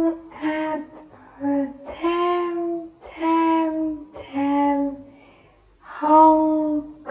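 A high voice singing the word 'time' over and over as separate held notes, about six in a row, with short gaps between them.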